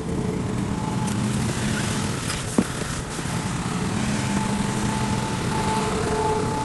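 Diesel engine of a heavy earthmoving machine (bulldozer or wheel loader) running steadily, with one sharp clank about two and a half seconds in.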